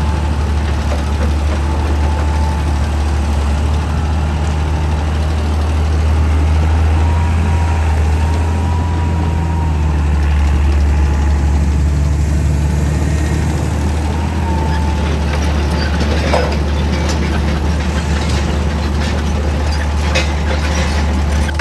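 Excavator's diesel engine running at a steady drone, with a few sharp knocks near the end as rock is handled.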